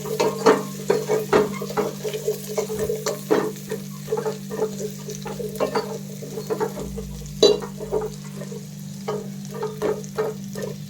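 Onions with ginger-garlic paste frying in oil in a pan, stirred with a spatula: repeated quick scrapes and knocks against the pan over a steady sizzle, with a low steady hum underneath.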